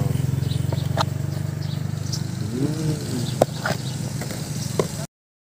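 A motorbike engine running steadily, fading away over the first three seconds. A few light clinks of a spoon against a ceramic bowl as batter is ladled, and all sound cuts off abruptly about five seconds in.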